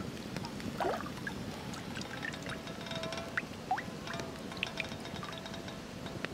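A black frying pan scooping water from a lake: a rising gurgle about a second in as it fills, then water dripping and trickling back from the lifted pan, with a few short plinking drops.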